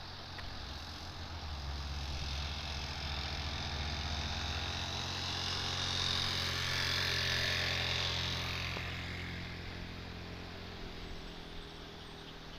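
Diesel concrete mixer truck driving past on a downhill road. Its low engine drone and tyre noise build, peak about six to eight seconds in, then fade as it moves away.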